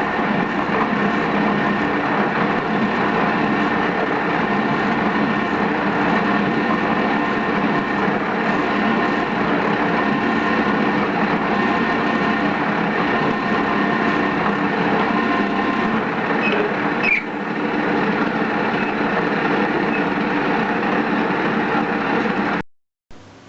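Metal lathe running steadily while cutting a steel workpiece, with a dense machine hum. It cuts off abruptly near the end.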